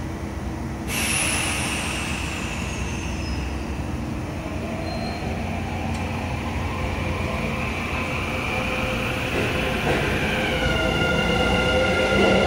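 Kintetsu 22600 series 'Ace' limited-express train pulling away from the platform, its IGBT VVVF inverter whining. A high whine starts suddenly about a second in and falls in pitch, then several tones rise and grow louder as the train gathers speed.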